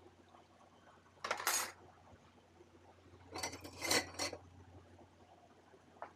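Dishes and cutlery clattering as they are handled during hand dishwashing: a short clatter about a second in, then a longer run of clinks in the middle, with a faint click near the end.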